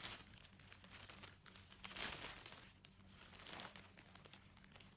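Faint crinkling rustles, a few soft bursts, as clothing is handled and unpacked.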